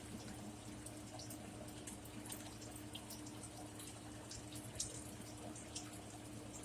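Close-up chewing with small wet mouth clicks, scattered and irregular, one louder click about five seconds in, over a steady low hum.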